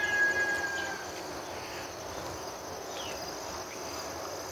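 Insects chirring steadily in a high, pulsing drone. A thin held tone fades out about a second in.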